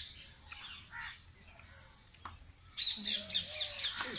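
Birds chirping and twittering in quick, high, overlapping calls, busiest from about three seconds in.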